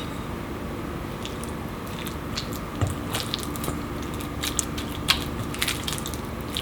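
Light, irregular clicks and taps of kitchen utensils being handled, over a faint steady hum.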